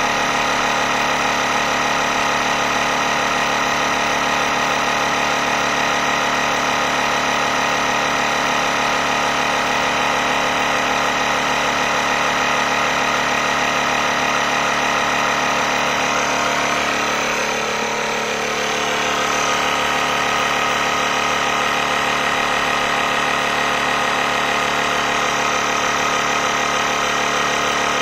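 Motomaster Eliminator 1400 booster pack's built-in air compressor running steadily, pumping air into a car tyre already at about 37 psi. The sound briefly dips and wavers about seventeen seconds in.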